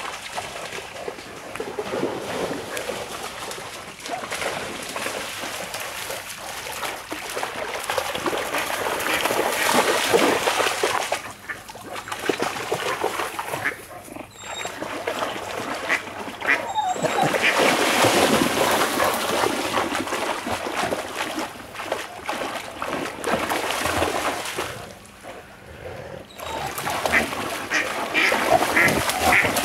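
A shar-pei dog splashing as it wades and bounds through a shallow stream, with ducks calling. The splashing comes and goes with a few short lulls and picks up near the end.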